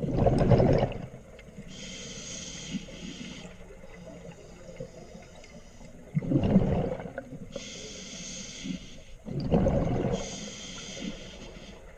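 Scuba diver breathing through a regulator underwater: a steady high hiss on each inhalation alternates with a louder rush of exhaled bubbles, three breaths in a slow, regular rhythm.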